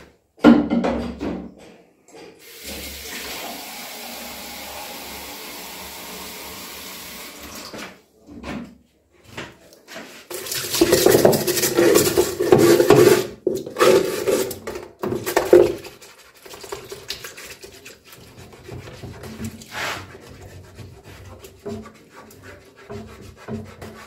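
Water poured into the bottom of a top-loading washing machine drum, running steadily for about five seconds. Then comes louder splashing and scrubbing as a brush works the wet plastic drum floor, and lighter rubbing follows.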